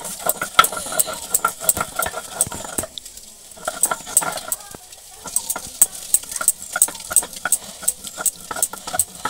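Stone roller rocked and rolled over a stone grinding slab (shil-nora), crushing onion into paste. Quick repeated knocks and scrapes of stone on stone, several a second, with short pauses about three and five seconds in.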